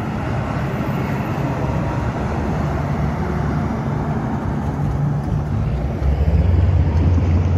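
Diesel engine of a Kobelco SK200 hydraulic excavator running steadily at close range, with a deeper, louder rumble coming in about six seconds in.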